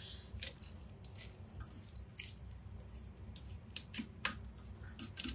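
Soft, scattered squishy clicks and rustles of fingers pressing chopped onion down in a Thermomix's steel mixing bowl.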